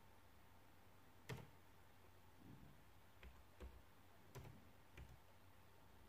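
Faint, irregular key clicks as a number is typed in one digit at a time, about half a dozen presses, the sharpest about a second in.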